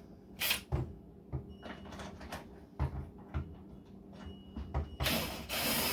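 A screwdriver backing a screw out of a front-load washing machine's front panel: scattered clicks and knocks of the tool against the panel, then a rougher scraping noise for about a second and a half near the end.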